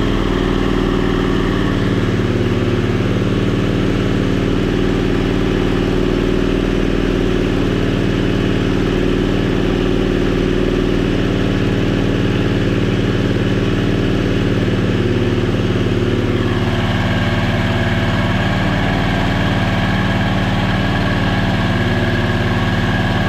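670cc Predator V-twin engine running steadily with the throttle held up during its break-in run. The tone shifts about two-thirds of the way in.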